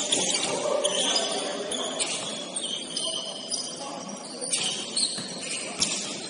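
Basketball game play: sneakers squeaking on the court in short high squeals, with a few ball bounces near the end.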